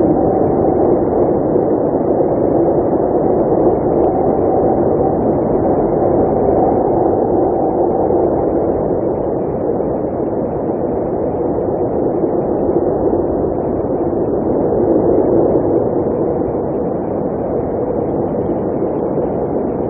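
Blizzard wind blowing steadily, a loud, even rush of snowstorm wind with its weight in the low-middle range.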